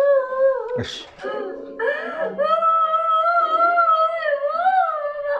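A woman wailing and sobbing hysterically: long, high, wavering cries, broken by a sharp gasping breath about a second in.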